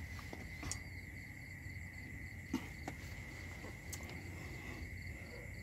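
Crickets chirping steadily: a continuous high trill with an evenly pulsing chirp above it. A few short clicks stand out, the clearest about two and a half seconds in.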